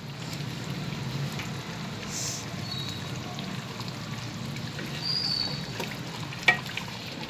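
Mutton liver bubbling steadily in its spiced yogurt gravy in a metal karahi. About six and a half seconds in, a wooden spoon knocks once against the pot.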